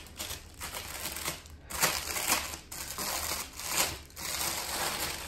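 A plastic bag crinkling and rustling as it is handled, in irregular bursts with a few louder crunches about two and four seconds in.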